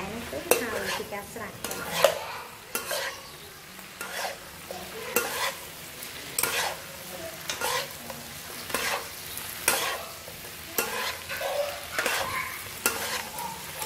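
Stir-frying chicken, green chilies and greens in a nonstick wok: a metal spatula and ladle scrape and toss the food in repeated strokes, roughly one or two a second, over a steady sizzle.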